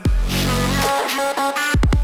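Background music: electronic dubstep-style track with heavy bass drops and drum hits, beginning abruptly as a rock song cuts off.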